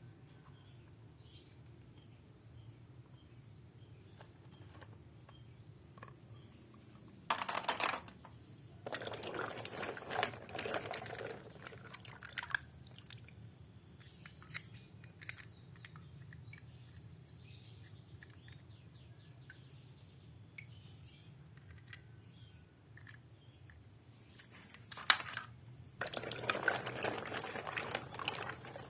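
Scattered clicks and two spells of rustling and clattering over a low steady hum, the louder spell near the end.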